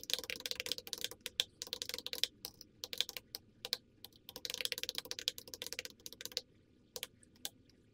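Fast typing on a computer keyboard, in quick runs of keystrokes with short pauses between them, ending in a few separate key presses near the end.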